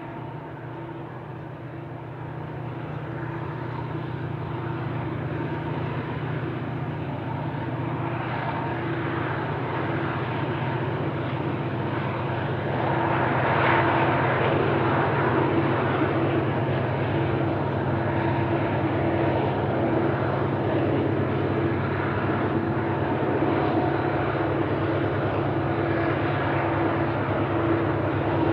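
Four BNSF diesel-electric locomotives hauling a loaded coal train: a steady low engine drone that grows louder as the train approaches.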